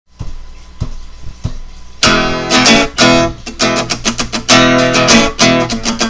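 Guitar intro music: a few soft plucked notes, then about two seconds in a loud, full track of strummed guitar chords with a steady beat starts.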